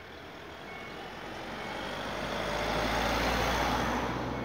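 Level-crossing warning signal beeping about once a second, while a road vehicle passes close by with a rushing noise and low rumble that swells to a peak about three seconds in and then fades.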